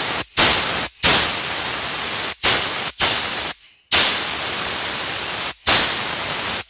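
Unregulated air blowgun fired in a run of about seven blasts of compressed air at full tank pressure, some short and some over a second long, each starting sharply and cutting off suddenly.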